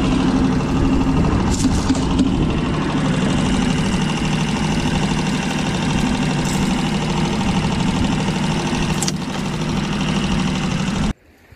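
A small fishing boat's motor running steadily at trolling speed, with a few faint clicks from handling the catch. It cuts off suddenly near the end.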